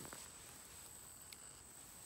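Near silence: a faint steady high-pitched insect drone, with a couple of faint clicks.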